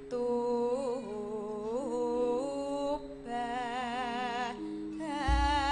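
A Javanese sinden singing into a microphone: two long, sustained melodic phrases with a wavering vibrato and a short break between them, over steady held accompaniment tones. A deep drum beat comes in near the end.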